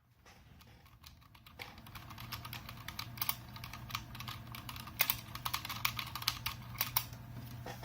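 Typing on a Whitefox mechanical keyboard: rapid, irregular key clicks from its responsive, clicky switches, growing busier about a second and a half in, over a faint low hum.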